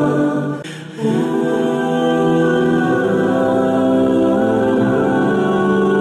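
Background music of held, choir-like voices over sustained tones, with a brief drop in level just under a second in.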